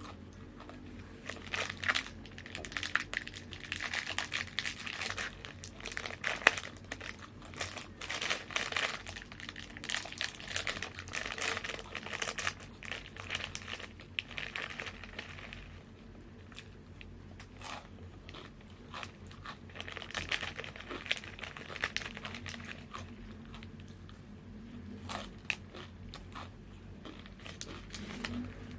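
Crunchy corn chips being bitten and chewed close to the microphone, a dense crunching and crinkling. It comes in two busy stretches with a few quieter seconds between them, then thins to scattered crunches near the end.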